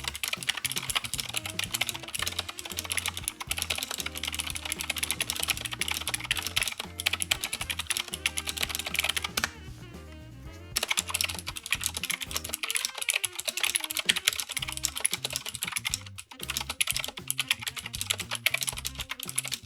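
Anne Pro 2 60% mechanical keyboard being typed on rapidly, a dense run of key clicks and clacks that pauses for about a second midway.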